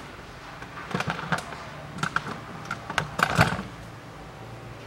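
Irregular light metallic clicks and knocks, a few small clusters with the loudest about three and a half seconds in, from the drive shaft stub and hub parts of a stripped front wheel hub being handled by a gloved hand.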